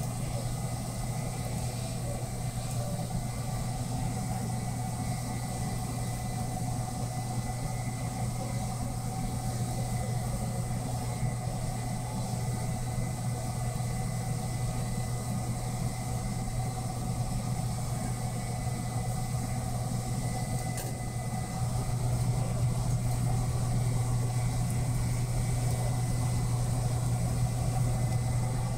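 A motor running with a steady low drone and a few thin steady whines above it, growing a little louder about three quarters of the way through.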